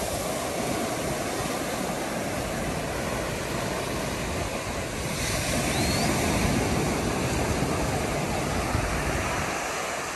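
Surf breaking and washing up the sand, with wind buffeting the microphone; the wash swells louder about halfway through.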